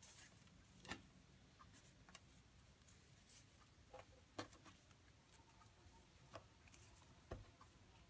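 Near silence with faint, irregular ticks and rustles of paracord being handled and pulled through a cobra-weave knot, fingers and cord brushing the wooden tabletop.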